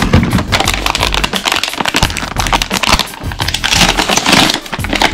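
Plastic crackling and crunching from toy-gun parts or packaging being handled, made of many rapid clicks, over background music.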